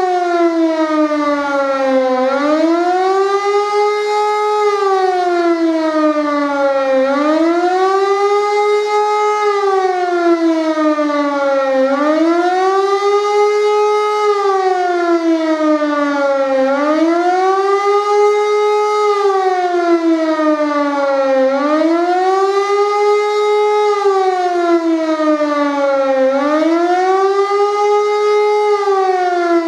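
Siemens E57 electro-mechanical civil-defence siren sounding a wail, its pitch rising and falling smoothly about once every five seconds. This rising-and-falling tone is the German public warning signal ('Warnung der Bevölkerung').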